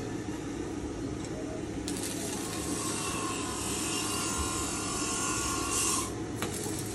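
Workshop machinery running steadily: a constant motor hum, joined about two seconds in by a higher whine.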